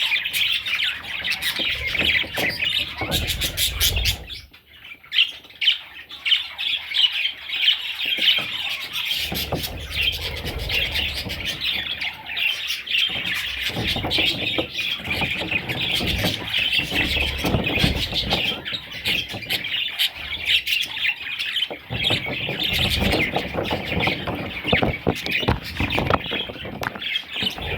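Budgerigars chattering and chirping continuously, many birds at once, thinning briefly about five seconds in.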